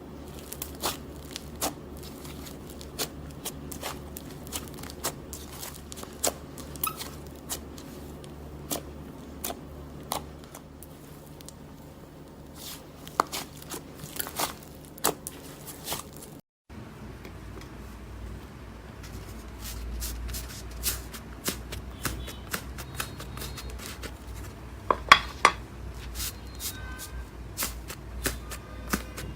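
Slime being poked and squeezed by hand, making irregular sticky clicks and small crackling pops. There is a brief break about sixteen seconds in, after which a low hum runs under the pops.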